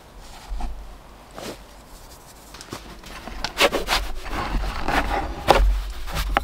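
Thin metal pizza peel scraping and rubbing across a floured wooden board as it is pushed under a raw pizza, with sharp knocks and clicks. A few soft taps come first; the scraping starts about halfway through and is the loudest part.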